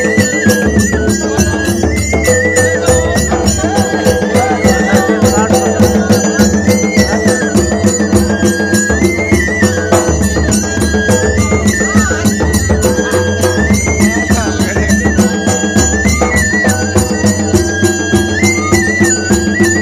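Traditional folk music: a reedy wind instrument repeats a short rising-and-falling phrase over a steady drumbeat and a held drone.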